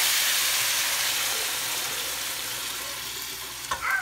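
Chicken and peppers sizzling in a hot aluminium pot as a thin orange liquid is poured over them, the hiss loudest at first and dying down as the liquid goes in. A short high-pitched gliding sound near the end.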